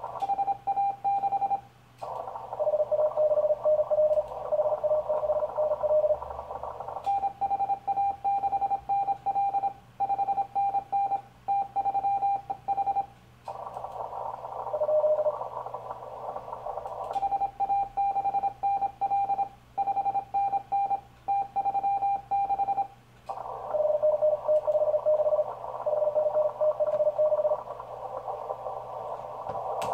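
Morse code on the 40 m band from a ham radio transceiver: the station's own higher-pitched keyed sidetone calling CQ in runs of about six seconds, alternating with stretches of receiver hiss in which another, lower-pitched Morse signal is heard.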